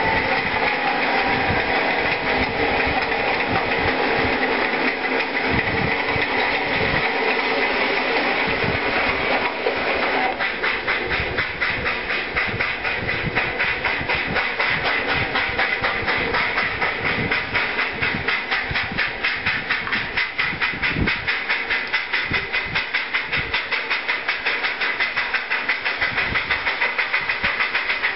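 A train rumbling past with scattered low thumps. About a third of the way in, this gives way to Black River and Western steam locomotive #60, a 2-8-0, working hard with a passenger train: its exhaust chuffs in a rapid, even beat of several chuffs a second.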